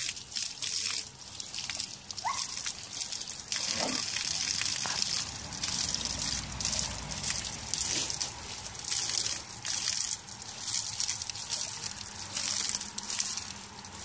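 Water from a garden hose spraying and splashing steadily onto a bear and into a plastic bucket, with irregular louder splashes as the bear paws at the stream.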